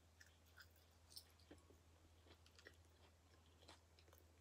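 Faint chewing of bacon: soft wet mouth clicks and smacks scattered irregularly, over a low steady hum.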